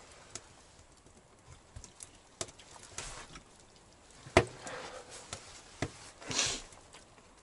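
Scattered small clicks and knocks with a couple of short rustles as dogs shift about and nose among plastic bags on a dirt floor; the loudest is a single sharp knock a little over four seconds in.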